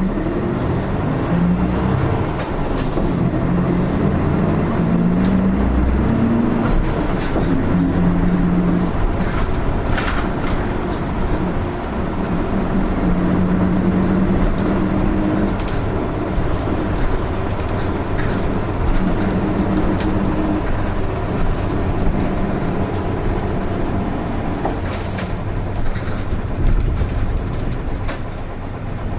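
Nissan Diesel Space Runner RA city bus engine (PKG-RA274MAN) running under way, heard from inside the cabin. The engine pitch rises over the first few seconds and then settles and holds at several steady levels as the bus drives on. This bus's engine note differs from others of its type.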